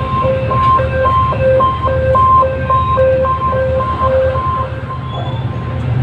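Level-crossing warning signal sounding an electronic two-tone beep, alternating low and high about twice a second, which stops near the end. Underneath it, the low rumble of the passing train.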